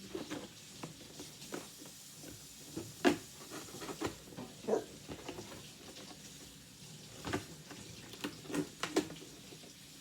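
Handling noise from the box and unboxing materials: irregular light knocks, taps and rustles, with a sharper knock about three seconds in.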